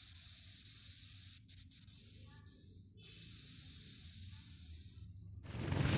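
Faint TV static hiss, an even rush of noise that breaks off briefly a couple of times and stops near the end, as music fades in.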